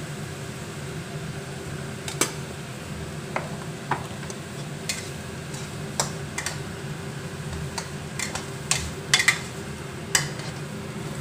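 A long metal spoon stirring and tossing fried rice in a wok, clinking and scraping against the pan in scattered strokes, the loudest a quick run of clinks about nine seconds in. A steady low hum runs underneath.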